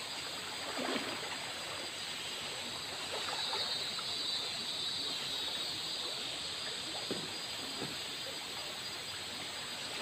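Shallow river flowing steadily over a rocky bed, with a few small splashes of water being moved by hand.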